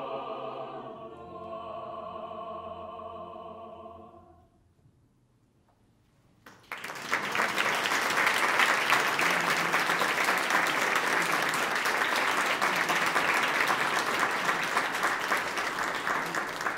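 A vocal quartet holds the final chord of a madrigal, which fades out about four seconds in. After about two seconds of silence, audience applause breaks out and continues steadily.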